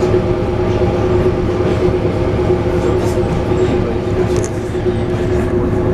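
ED9M electric multiple unit heard from inside a passenger car while running: a steady rumble of wheels on rail with a constant hum and a few faint clicks.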